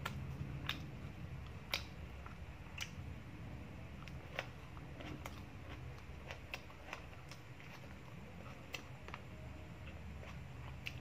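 Eating by hand: fingers picking at fish on a plate and mouth chewing, heard as scattered sharp clicks and smacks over a low steady hum.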